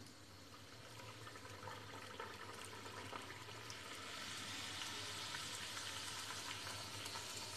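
Semolina golgappa puris frying in very hot oil in an aluminium kadhai: a faint, steady sizzle and bubbling that grows louder about four seconds in.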